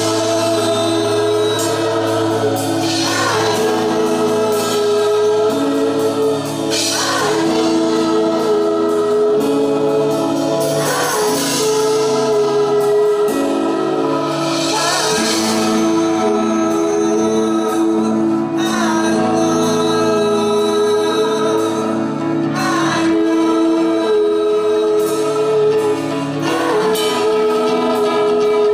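A rock band playing live, with a drum kit and singing over steady sustained chords.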